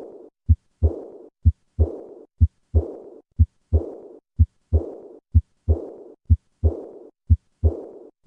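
Heartbeat with the murmur of aortic regurgitation, about nine beats at a steady rate of roughly one a second. Each beat has two short low heart sounds, and right after the second one a high-pitched murmur starts and fades away through diastole.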